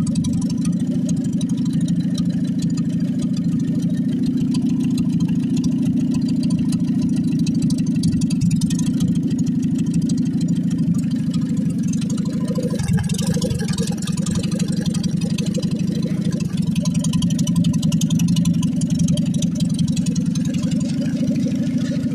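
Land Rover Series I engine running steadily on a workshop test stand, its carburettor fed by hand with fuel poured from a bottle. The note changes briefly about halfway through, then settles again.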